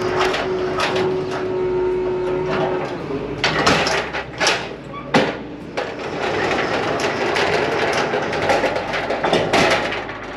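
A forklift working beside a curtain-sided truck trailer as it is loaded: its engine running, with a steady tone that stops about three seconds in, then a run of sharp clanks and knocks in the middle and another near the end.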